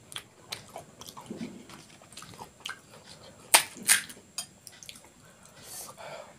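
Crisp crackling of fried puri shells being handled and cracked open with the fingers, with two louder sharp cracks about three and a half seconds in.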